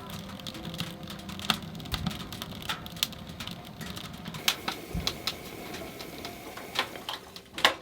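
Firewood crackling and popping in a wood-burning stove, with irregular sharp snaps of varying loudness over a low rumble of the fire.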